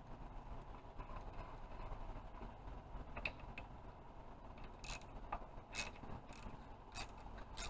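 Ratchet wrench on a long extension and deep 8 mm socket, clicking as it turns out captive rocker cover bolts. Faint clicks start about three seconds in, then come about every half second, one with each swing of the handle.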